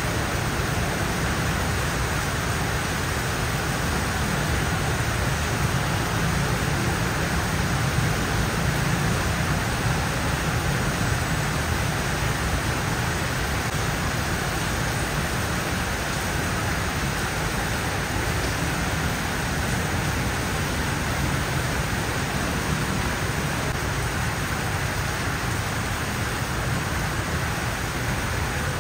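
Steady heavy rain falling, a dense even hiss that neither builds nor fades.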